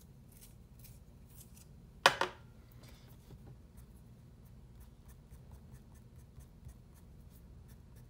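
A pencil being sharpened with a few scraping strokes, then a single sharp knock about two seconds in. After that, an 8B graphite pencil makes quick short strokes on paper, several a second, laying in feathering lines.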